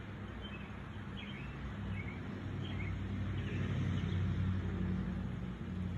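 Low engine hum of a passing vehicle, growing louder to its loudest about four seconds in and then easing off, with a few short bird chirps in the first half.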